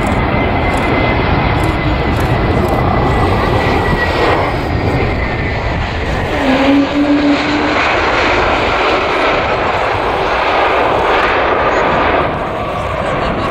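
Airbus A321neo jet engines on landing and rollout: a steady loud roar with a faint whine slowly falling in pitch. A brief low hum comes in about six and a half seconds in, and the roar grows brighter in the second half.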